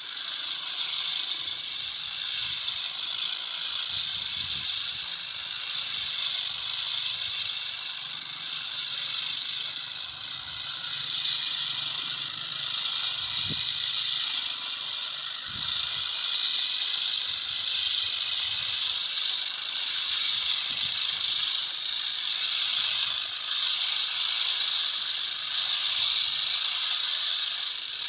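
A floor sanding machine runs on a synthetic court surface, giving a steady high hiss with a faint whine that wavers slightly in pitch.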